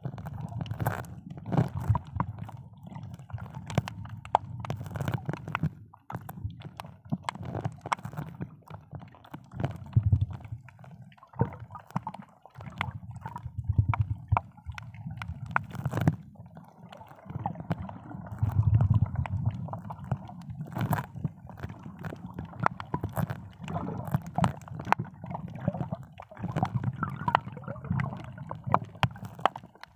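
Muffled underwater sound heard through a camera held below the surface. Water movement makes a low rumble that swells and fades every few seconds, scattered with many short clicks and crackles.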